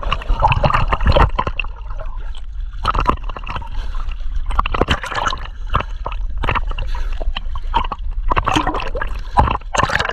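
Choppy sea water splashing and gurgling close to the microphone, in irregular splashes over a constant low rumble.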